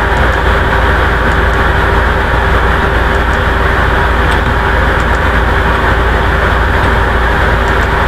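Loud, steady rushing noise with a faint constant hum running through it; no voices.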